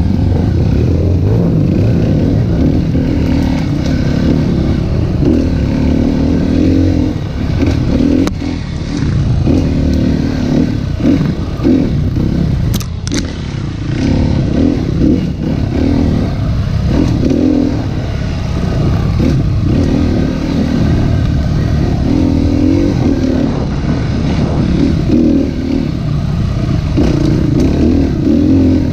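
Dirt bike engine running as the bike is ridden, its revs rising and falling repeatedly with the throttle, with clattering and occasional sharp knocks from the bike over rough ground.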